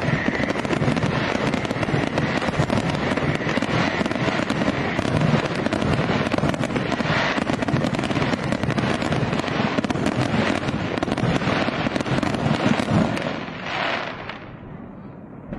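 Fireworks: a dense barrage of many shells going off together, with rapid, continuous crackling and popping. It eases off about thirteen seconds in, with one last swell shortly after.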